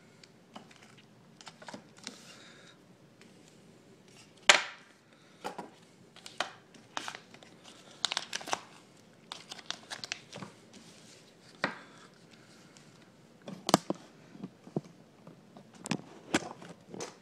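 Clear plastic coin sleeves holding silver rounds crinkling and clicking as they are handled and laid out on a table, in irregular short bursts with a few sharper clicks.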